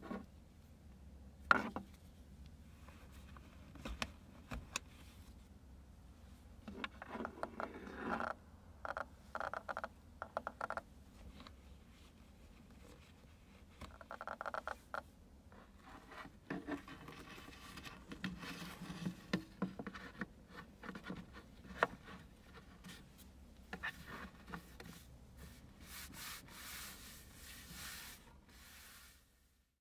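Hands fitting hooks and buckled straps over a fabric car seat back and setting a board on them. Uneven rubbing and scraping with scattered small clicks.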